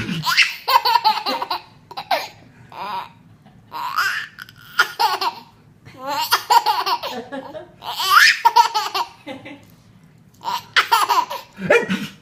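A baby laughing hard in repeated fits, each burst of giggles broken by short pauses.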